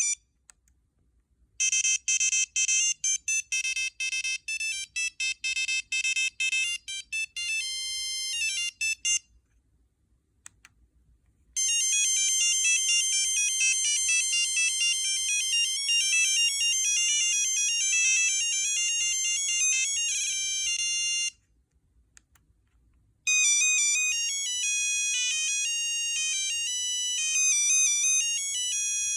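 Nokia 6340i mobile phone playing three different ringtone melodies through its speaker, one after another, each cut off abruptly with about two seconds of silence between them. The first is a string of short repeated beeping notes; the next two are faster tunes of bright electronic notes.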